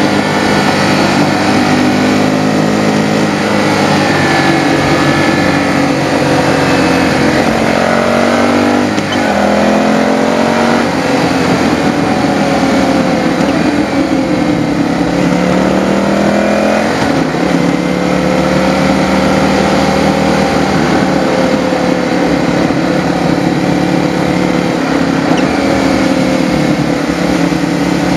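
Motorcycle engine running under way, its pitch rising and falling with the throttle, climbing and then dropping sharply about nine and seventeen seconds in.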